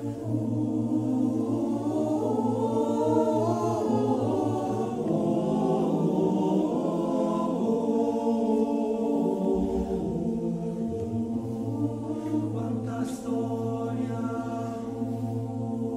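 A male a cappella choir singing a slow, solemn song in sustained chords over a low held bass note. The bass thins out for several seconds in the middle, then returns under the melody.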